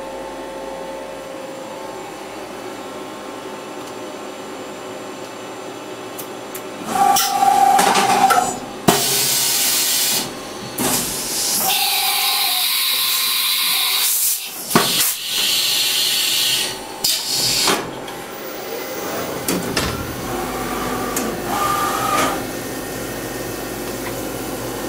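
CNC milling machine at work: a steady hum, then from about seven seconds in loud hissing that starts and stops several times before settling to a steadier running sound.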